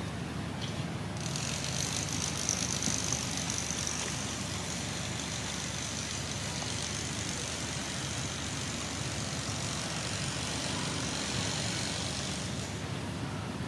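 Steady outdoor background noise with a low rumble, joined about a second in by a high, even hiss that fades out about a second before the end.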